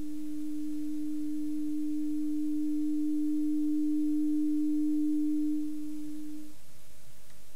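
A low-pitched pure test tone from a hearing-test signal generator, held steady in pitch. It grows gradually louder as the volume dial is turned up, then fades away about six seconds in.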